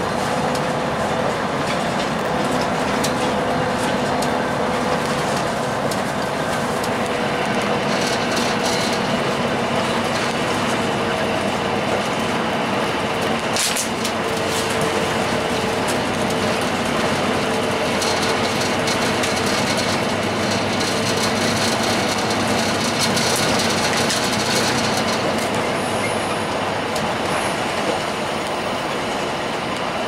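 Ride noise inside a 2002 Blue Bird CS transit bus under way: its Cummins ISC diesel engine running steadily, with road noise and occasional clicks and rattles from the cabin.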